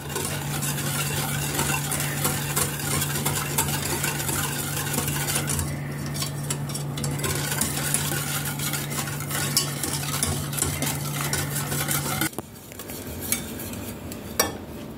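Wire whisk beating a runny cocoa glaze in a stainless steel saucepan: fast, steady scraping and clinking of the wires against the pan, which stops abruptly about twelve seconds in, leaving a few soft clinks.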